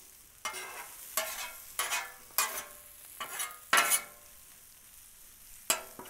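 Two metal spatulas scraping and turning diced potatoes on a hot Blackstone flat-top griddle, with oil sizzling underneath. A quick run of scrapes in the first four seconds gives way to quieter frying, with one more scrape near the end.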